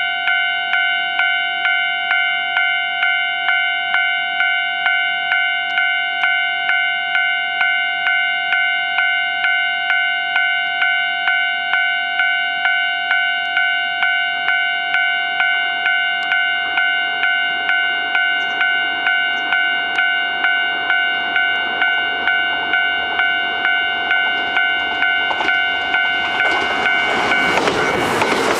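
Japanese level crossing's electronic warning bell ringing steadily, about one and a half strikes a second. Near the end the noise of a Kintetsu 12600- and 12200-series limited express train arriving rises and drowns it out.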